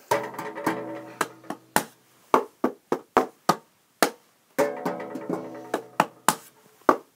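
Hand-played percussion ostinato: a steady pattern of sharp wooden knocks, with ringing pitched instrument notes over it near the start and again in the second half.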